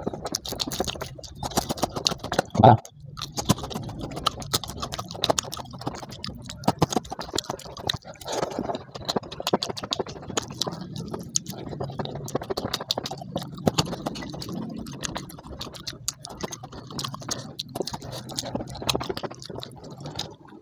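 A person chewing and smacking their lips close to a clip-on microphone while eating rice and fried fish by hand, with many small wet mouth clicks. One louder thump comes near three seconds in.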